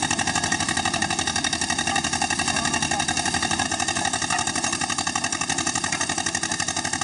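Engine-driven quarry machinery running steadily with a rapid, even pulse.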